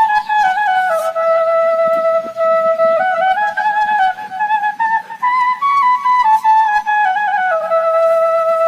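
Background music: a single flute playing a slow melody that steps up and down, with long held notes.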